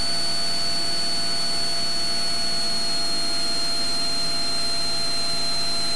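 Steady electrical hiss carrying a thin high whine that sags slightly in pitch, in the aircraft's headset audio. It cuts off abruptly at the end.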